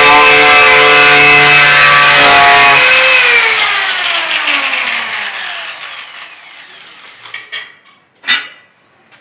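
Grinder fitted with an abrasive grinding-paper disc, running at full speed with a loud whine while cleaning cut steel pieces. About three seconds in it is switched off and its pitch falls steadily as it spins down. Two sharp knocks near the end.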